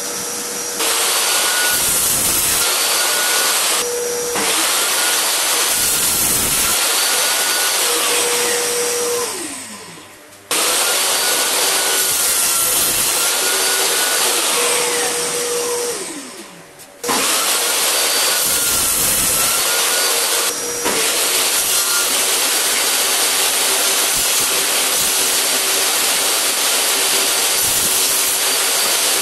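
Portable table saw running with a steady motor whine, the pitch sagging and recovering as the blade cuts through pine boards. Twice the motor winds down with a falling pitch before the sound starts again abruptly.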